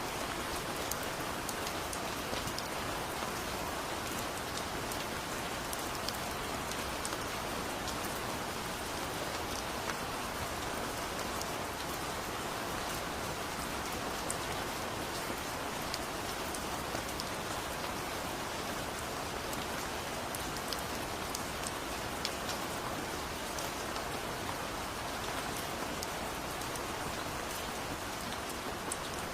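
Heavy rain falling steadily, with many scattered sharp drop ticks over the even hiss of the downpour.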